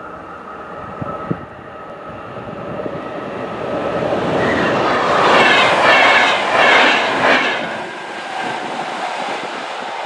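VR double-deck InterCity train hauled by an Sr1 electric locomotive passing at speed. Its rush of wheels builds, peaks about halfway through with a rapid clickety-clack of wheelsets over the rail joints, then fades as the train runs off into the distance.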